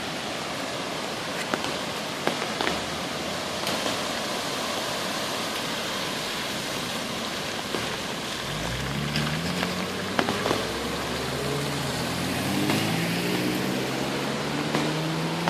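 Heavy rain and rushing floodwater make a steady hiss, with scattered sharp drop taps. About halfway through, a car engine comes in, its pitch rising and stepping up as it revs, as the car tries to push through the floodwater.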